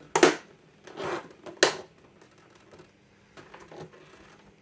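Hard plastic clicks and knocks from handling an old desk telephone's housing as a part is fitted into place: a loud click right at the start, a duller knock, another sharp click, then a few faint taps.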